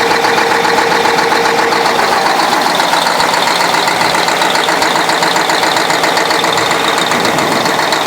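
YaMZ-6581.10 V8 turbo-diesel engine running steadily at idle with a knock that the owner finds puzzling and cannot identify.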